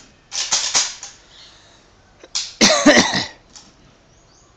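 A person coughing: a short run of coughs about half a second in, then a louder cough about two and a half seconds in.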